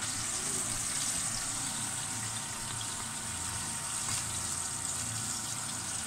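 Hot oil sizzling steadily in a frying pan while fried pieces of meat are lifted out.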